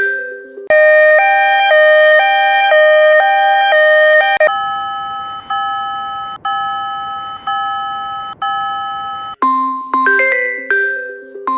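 Made-up level-crossing bell sounds ringing in changing patterns: a chiming melody, then a fast alternating two-note ding-ding, then slower single strikes about once a second over a hiss, and the chiming melody returns near the end.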